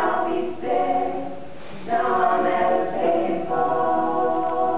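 Mixed youth choir of boys and girls singing, a series of long held chords with short breaks between phrases.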